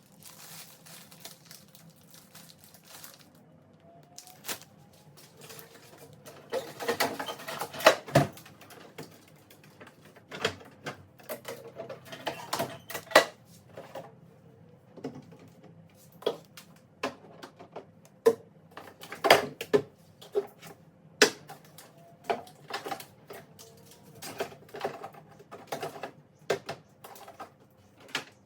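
Irregular clicks, knocks and clatter of containers and jars being handled and set down on fridge shelves, with a few sharper knocks along the way.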